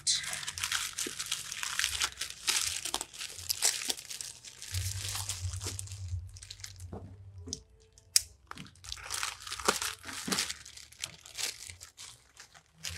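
Plastic mailer bags and wrapping crinkling and rustling as they are handled, in quick irregular strokes. The handling goes quieter around seven seconds, with one sharp click just after eight, then the crinkling resumes.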